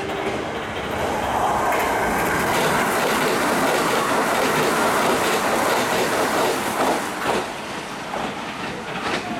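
Kintetsu limited express electric train passing through the station at speed without stopping: a rush of wheels and air swells in about a second in, holds loud, with wheels clacking over rail joints, and eases off as the last cars go by.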